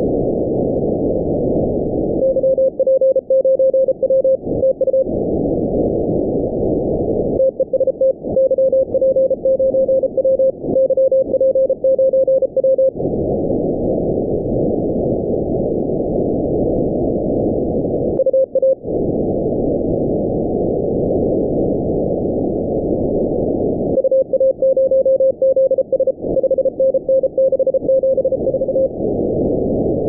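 Morse code (CW) received on the 20 m amateur band through a shortwave software-defined radio in upper-sideband mode: a single mid-pitched beep keyed on and off in dots and dashes, in several spells with pauses, over steady band hiss.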